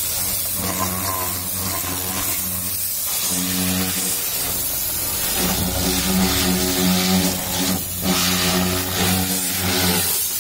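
Electric pressure washer running: a motor hum under the hiss of the water jet spraying a car's wheel and tyre. The hum breaks off briefly a few times.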